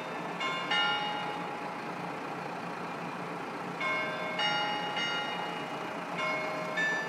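Bell-like chimes ringing in irregular clusters of two or three strikes every few seconds, each strike with several clear tones. A steady low hum from the standing KiHa 54 diesel railcar's engine runs underneath.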